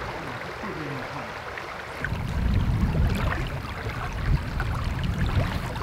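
Shallow creek water running over rocks. About two seconds in it gets louder, with a low rumble underneath, and a faint voice can be heard before that.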